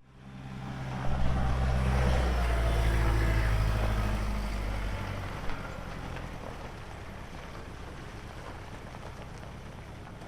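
A vehicle's engine running, loudest for the first few seconds and then fading to a lower steady hum.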